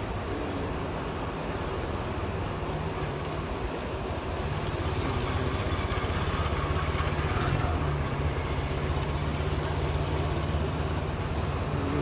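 Road traffic at a street: vehicle engines running with a steady low hum under road noise, growing louder about four seconds in as traffic passes.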